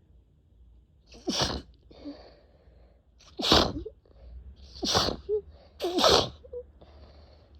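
A person sneezing four times in quick succession, wet sneezes one to two seconds apart, in an uncontrollable sneezing fit.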